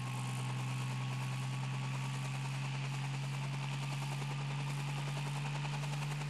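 Sound-effect engine drone: a steady low hum with a fast, even rattle over it.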